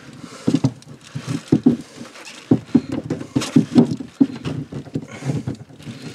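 Pliers gripping and wrenching at a plastic RV shower drain fitting that has been glued on: an irregular run of clicks, knocks and crunches.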